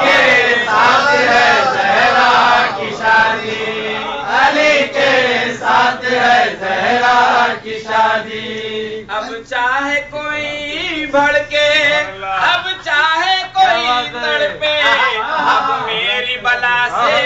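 A man reciting a manqabat, a devotional poem in praise of Ali, as an unaccompanied melodic chant. His sung phrases rise and fall, with short breaths between lines.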